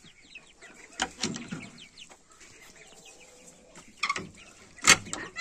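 Half-grown chicks in a cage peeping and clucking softly, short high calls repeated through the first few seconds. A knock about a second in and a louder, sharp knock near the end.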